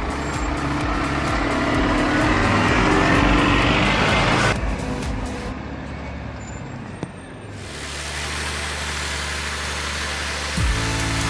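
Scania 6x6 logging truck's diesel engine working hard, its note rising as it revs, then cutting off suddenly about four and a half seconds in. From about eight seconds in, a steady low engine drone follows.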